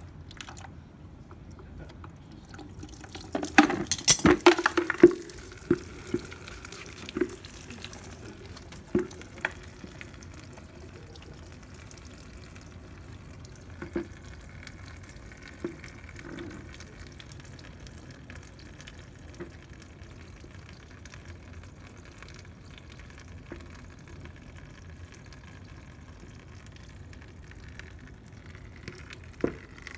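Engine coolant draining from a Honda CB1300 into a plastic bucket: a thin stream trickling and splashing into the bucket. A loud flurry of clattering knocks and splashes comes about four seconds in, with scattered clicks after.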